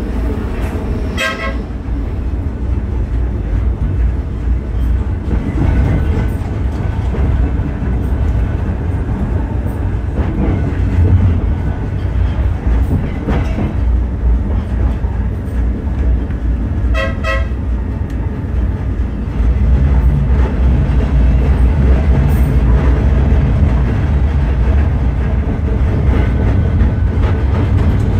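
Blackpool Balloon double-deck electric tram running along the tracks, a steady low rumble that grows louder about 19 seconds in. The tram's horn toots briefly twice, about a second in and again about 17 seconds in.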